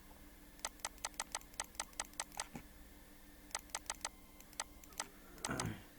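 Sharp clicks at a computer: a quick run of about nine, then a pause and about five more. About five and a half seconds in comes a short, louder muffled thump.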